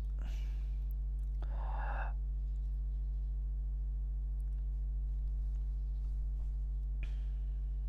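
A steady low hum with several even tones underneath, and the teacher's breaths over it: two soft breaths in the first two seconds and another near the end.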